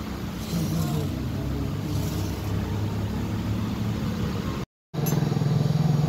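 Steady low mechanical hum, which cuts out for a moment near the end and comes back louder.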